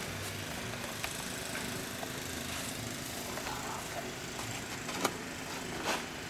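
A steady low hum and background noise, broken by one or two short scrapes of a snow shovel on the path near the end.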